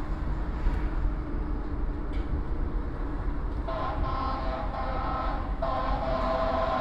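Low, steady rumble of an elevated train and street traffic. From about halfway in, a loud horn with several notes sounds, breaks off briefly and sounds again.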